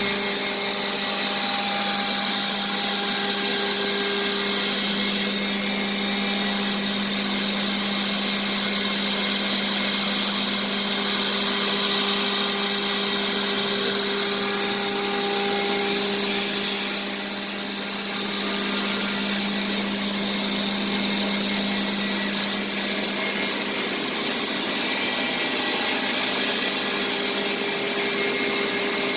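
CNC router spindle running steadily with a high hum while the bit cuts plastic sheet, with a hiss of cutting over it. About halfway through the sound briefly swells, then drops for a second or so before it settles back.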